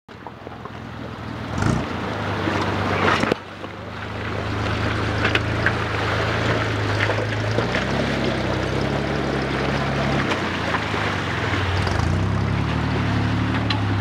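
Jeep CJ engine running at low speed as it crawls through a rocky river, its pitch stepping up and down a few times with the throttle, over rushing, splashing water. Two sharp knocks come in the first few seconds.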